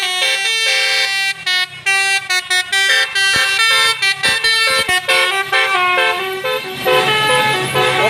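A tour bus's basuri 'telolet' musical horn, a multi-trumpet horn, playing a melody of stepped notes and chords, with short breaks between phrases. Near the end the bus's engine rumble rises underneath as it passes close.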